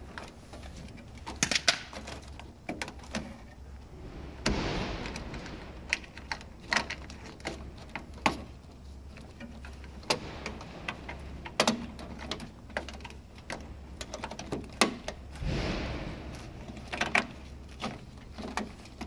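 Hands working inside a large-format printer, handling ribbon cables and plastic and metal parts: scattered irregular clicks and knocks, with two longer rustling scrapes, over a low steady hum.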